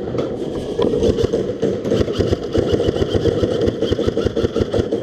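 Airsoft electric guns firing long full-auto bursts, a fast steady mechanical rattle of clicks.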